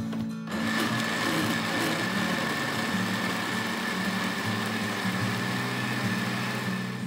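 Electric countertop blender running steadily with a high whine, puréeing sweetcorn kernels into a liquid cake batter. It starts about half a second in and stops near the end.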